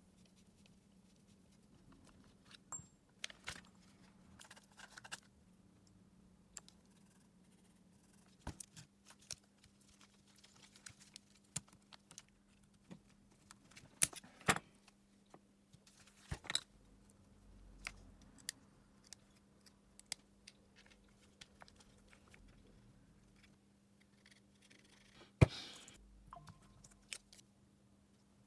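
Small hard objects being handled: scattered clicks, taps and knocks, a sharp knock near the end, over a faint steady hum.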